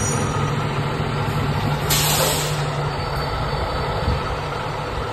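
Heavy rescue fire truck (2020 Spartan Gladiator/SVI) diesel engine running steadily, with a short burst of air hiss about two seconds in.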